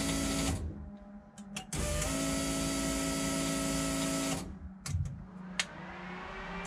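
Electric radiator cooling fan running with a steady whir, cut off about half a second in, switched back on about two seconds in, then cut off again a couple of seconds later, followed by two sharp clicks. It is a power-on test of the radiator fans.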